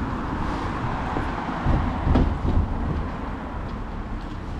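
Outdoor street background noise with a steady low rumble and a few louder bumps about two seconds in.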